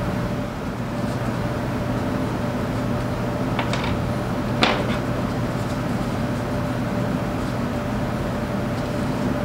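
Steady mechanical hum with a constant mid-pitched tone. About three and a half and four and a half seconds in come two brief scuffs as a shop rag is wiped over the overdrive housing.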